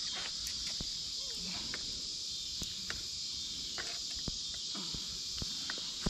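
Steady high-pitched insect chorus droning from the woods, with a few light clicks and ticks scattered through it.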